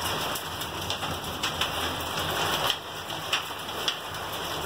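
Hail and rain pattering on a translucent roof overhead, with irregular sharp hits of single hailstones striking the panels.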